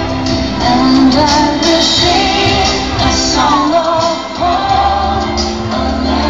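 A female singer singing live over instrumental backing music.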